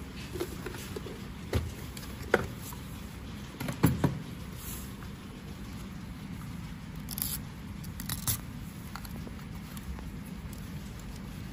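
Hands handling the plastic body shell and internal parts of a Unitree Go1 robot dog during disassembly: scattered clicks, taps and light scrapes of plastic, with the loudest knocks about four seconds in, over a steady low hum.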